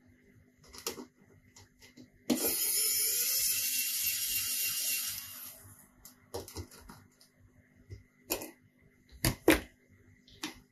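Light clicks and taps of small hand tools working on a tablet. About two seconds in, a steady hissing noise starts abruptly and lasts about three seconds.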